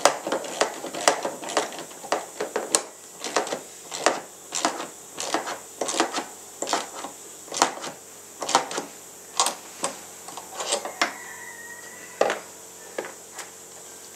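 Irregular sharp clicks and knocks, about two a second, from hand-tool work on a fitting in a personal watercraft's deck. A short squeak comes near the end.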